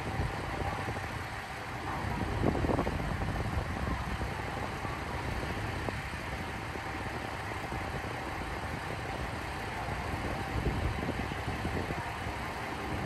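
Train's steady mechanical noise: a low rumble with a faint constant hum.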